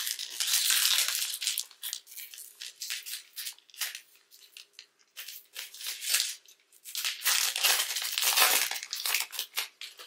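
Wrapper of a Panini Mosaic basketball card pack being torn open and crinkled by gloved hands. The crackling and rustling comes in a louder stretch near the start and another about seven seconds in, with smaller crackles between.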